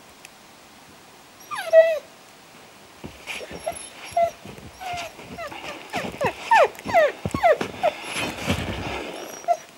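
A hunting dog whining and yelping in short, falling, high-pitched cries, one about 1.5 s in and then many in quick succession from about 3 s on. Footsteps plough through deep snow under the cries.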